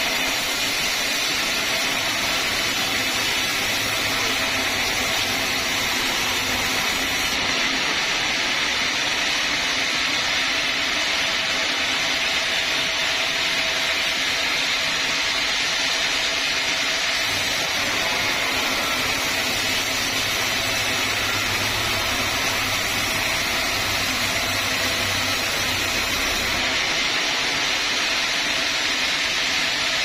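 Vertical band sawmill running steadily, its blade sawing through a large teak log.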